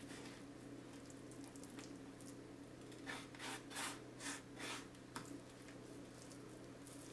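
Hands rubbing a dry spice rub into a raw pork joint on a wooden cutting board: a short run of about five scratchy rubbing strokes in the middle, over a faint steady hum.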